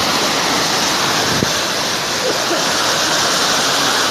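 Loud, steady rush of floodwater flowing, with faint voices calling about halfway through.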